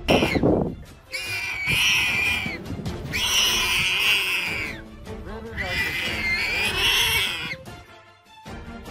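Three long wild-animal calls, each about a second and a half to two seconds, over background music, after a sudden loud hit right at the start.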